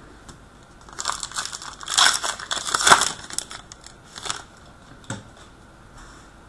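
Foil trading-card pack wrapper crinkling and tearing as a hockey card pack is opened, a dense crackle that peaks about three seconds in, followed by a few sharp clicks of cards being handled.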